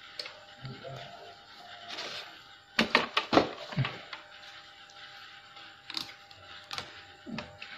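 A digital multimeter being handled: set down on the keyboard and its plastic range dial turned. This gives a quick cluster of clicks and knocks about three seconds in and a few single clicks near the end.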